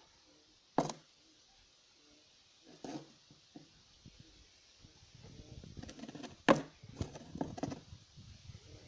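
A cornered European hamster hissing and huffing defensively in a run of short harsh bursts from about five seconds in, the loudest about six and a half seconds in, after a couple of isolated sharp clicks.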